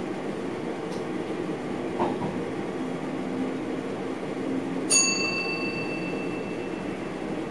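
Steady running noise of a train heard inside the driver's cab, with a small knock about two seconds in. About five seconds in comes a single bright bell-like ding, the loudest sound, which rings out for about two seconds.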